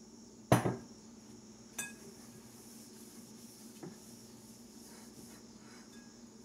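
A glass olive oil bottle is set down on the countertop with a sharp knock about half a second in. Two lighter knocks follow as a glass mixing bowl is handled and wiped with an oiled paper towel.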